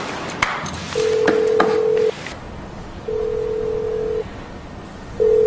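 Telephone ringback tone heard through a landline handset: a steady single-pitched beep about a second long, sounding three times with about a second between, the call ringing and not yet answered. The third beep is cut short.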